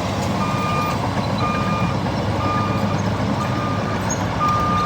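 Komatsu bulldozer backing up: its reversing alarm beeps about once a second over the steady run of its diesel engine.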